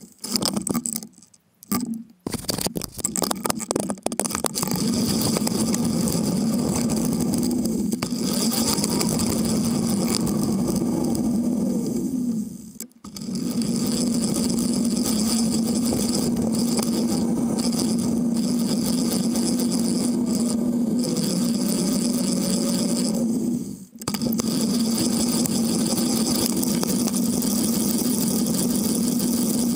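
Steady rolling noise from a bicycle riding along an asphalt street, picked up by a camera mounted low on the bike, with wind on the microphone and a steady hum. It is choppy at first, then continuous, dropping out briefly twice, about midway and again near the end.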